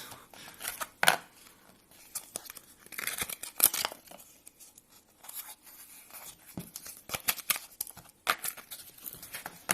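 A price sticker being peeled and torn off a Zippo lighter's packaging, in irregular tearing and rustling strokes with some crinkling.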